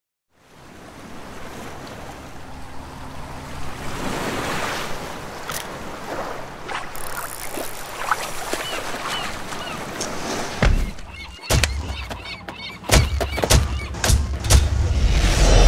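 Surf and wind ambience fading in, with a few short high chirps partway through. About ten seconds in, deep booms and sharp percussive hits begin and build in loudness.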